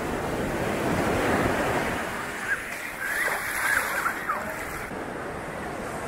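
Ocean surf washing onto a beach, the hiss of a breaking wave swelling about a second in and easing off, with some wind on the microphone. A few short, high cries stand out briefly in the middle.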